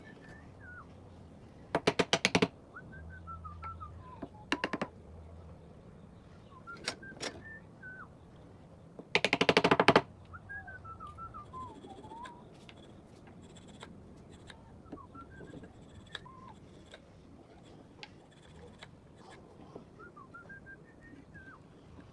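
Several short bursts of rapid mechanical clicking, the loudest about two seconds in and again near the middle, with birds chirping faintly throughout.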